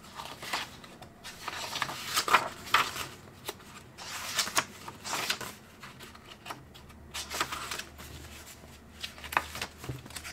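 Paper sketchbook pages being turned and smoothed flat by hand, a string of irregular quick rustles and flaps.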